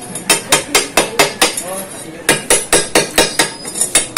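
Chipping hammer rapping on a fresh weld bead between metal tubes, knocking off the slag: quick sharp metallic taps, about four to five a second, with a short pause partway through.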